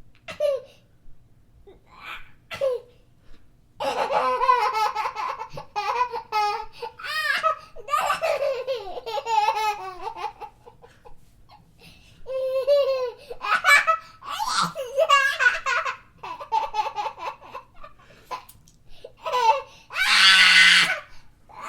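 A young boy laughing hard while being tickled, in long runs of rapid, breathless giggling broken by short gasps. A loud, high-pitched outburst of laughter comes near the end.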